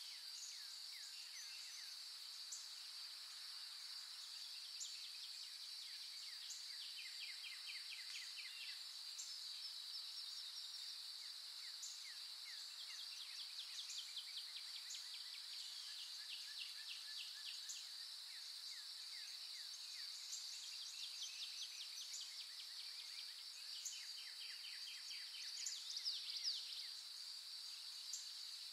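Outdoor nature ambience: insects drone steadily at a high pitch, with rapid chirping trills of short falling notes repeating over it, and a burst of louder chirps near the end.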